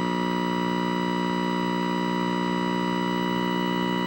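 Steady, buzzy electronic tone from the speaker of a 1975 Sony Trinitron KV1712 colour TV while a pattern generator feeds it: the set is receiving the generator's signal and putting out sound.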